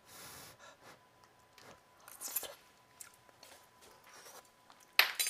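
A person blowing on a hot spoonful of soup, then tasting it with soft mouth sounds and breathy puffs, the food still very hot. About two seconds in there is a brief breathy puff, and near the end a sudden loud burst of noise.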